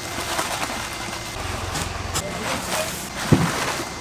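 Indistinct voices over outdoor street background noise, with one sharp thump about three seconds in.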